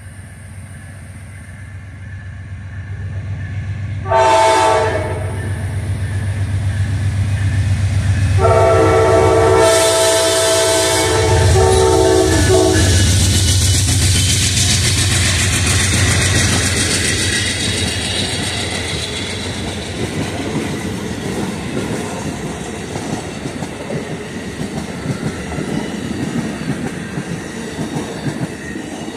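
Amtrak GE P42DC diesel locomotive approaching and passing at speed, its engine growing louder, with a short horn blast about four seconds in and a longer one from about eight to thirteen seconds. After the locomotive goes by, the passenger cars follow with steady wheel-and-rail noise.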